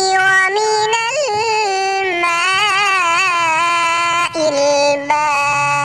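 A single high-pitched voice singing long, drawn-out notes with a wavering pitch in a melismatic chant; the melody steps down to a lower note about four seconds in.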